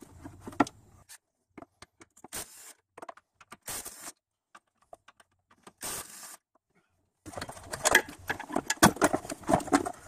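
Handling of a plastic engine air filter box: scattered clicks and a few short bursts of a cordless driver on its hold-down bolts. From about seven seconds in comes a dense clatter of plastic knocking and scraping as the box housing is worked loose and lifted.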